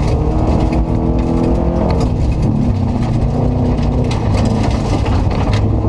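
In-cabin sound of a Subaru Impreza rally car's flat-four engine running hard on a gravel stage, its note rising and falling as it accelerates and eases off. Short sharp knocks of gravel striking the car come through now and then.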